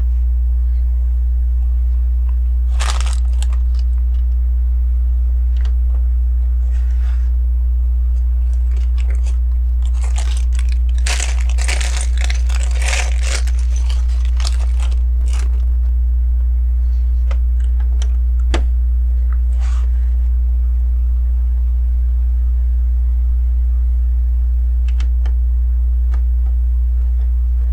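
Hands rummaging through loose plastic LEGO pieces, rustling and clattering in patches, busiest about ten to sixteen seconds in, with a few single sharp clicks later. A steady low electrical hum runs underneath throughout.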